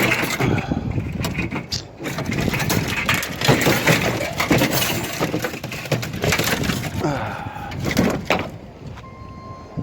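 Metal clanking, rattling and scraping as parts are pried and broken off scrap appliances, with a faint steady tone near the end.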